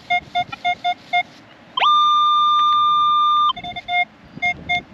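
Metal detector beeping rapidly, about six short beeps a second, broken near the middle by one long, higher steady tone that opens with a quick upward glide. It is signalling a shallow target that the detectorist reads as a piece of can.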